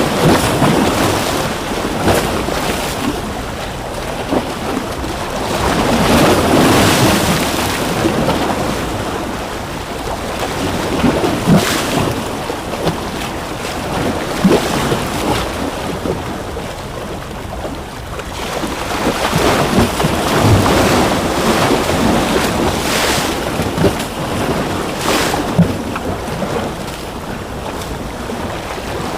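Ocean waves breaking and washing ashore, a continuous surf noise that swells twice and falls back, with small sharp splashes and crackles of water throughout.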